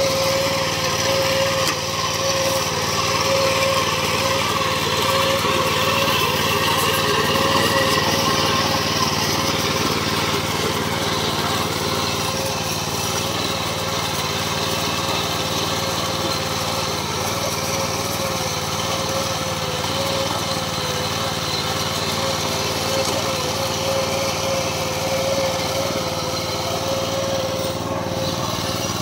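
MTD 750 power weeder's small single-cylinder petrol engine running steadily at an even speed while its rotary tines till the soil.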